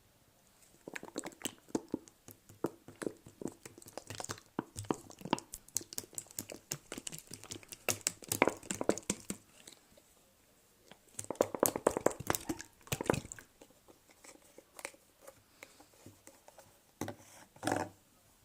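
Slime being squished and worked by hand, giving wet crackling and clicking pops in clusters. There are short pauses between clusters, and a quieter spell in the last few seconds with a few more pops near the end.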